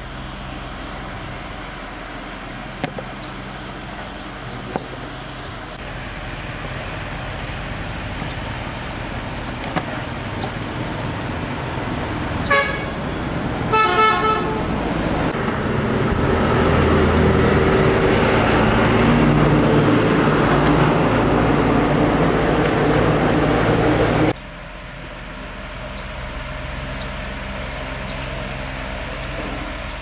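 Road traffic with a vehicle horn giving a few short beeps about halfway through. A motor vehicle then passes close, getting louder, until the sound cuts off suddenly near the end.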